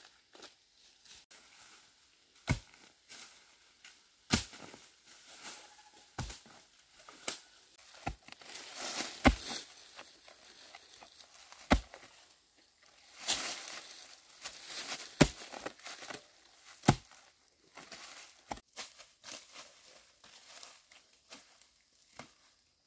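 A hoe chopping into the soil to dig out bamboo shoots, sharp irregular strikes every second or two, with dry fallen bamboo leaves crackling and rustling between strokes.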